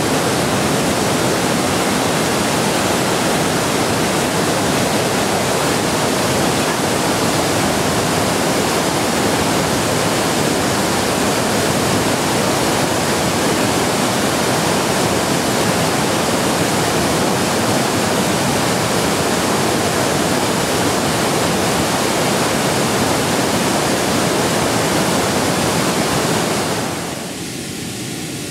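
A small waterfall pouring, a steady loud rush of water. Near the end the rush drops away to a quieter hiss with a few faint steady tones.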